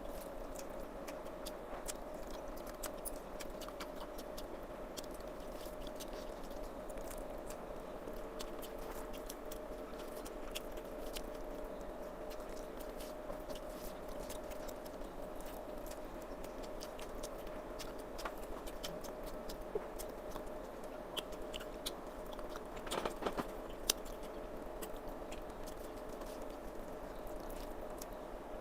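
A person chewing and eating a meal of rice and chicken curry, with many small wet mouth clicks and smacks over a steady background hum. A short cluster of louder clicks comes about three quarters of the way through.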